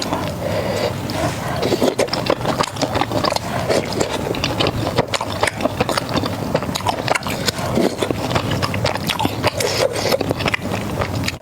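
Close-miked chewing and crunching of crispy fried food, with a dense run of sharp crackles and wet mouth sounds.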